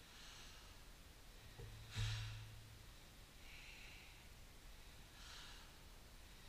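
Short, forceful breaths of a karate practitioner working through a kata, a few quick airy exhalations. About two seconds in comes a louder one with a thud under it.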